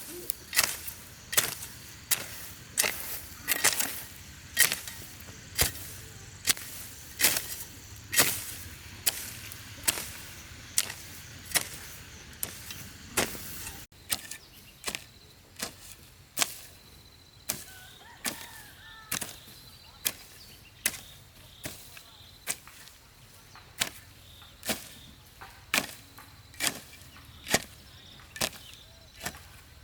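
A hand tool chopping in steady, even strokes, a little under one a second.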